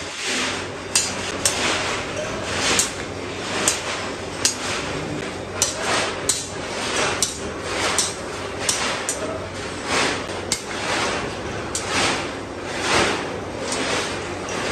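Hand hammer striking a steel rod against a small steel anvil block, blow after blow at an uneven pace of one or two a second, each a sharp metal-on-metal strike.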